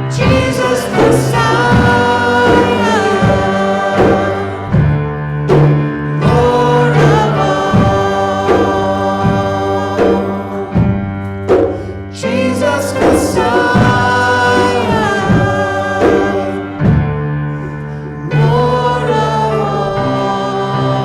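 Worship song sung with instrumental accompaniment: voices carrying a melody over a sustained instrumental backing.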